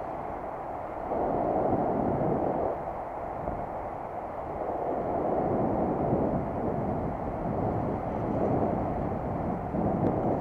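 Wind rushing over the microphone of a bicycle-mounted camera while riding, swelling about a second in and rising and falling after that, with the dull rumble of the ride underneath.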